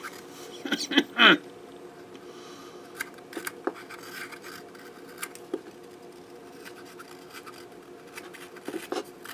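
Razor knife whittling a soft white-wood lure blank: short scraping cuts shaving the wood, two louder strokes about a second in, then fainter, irregular cuts.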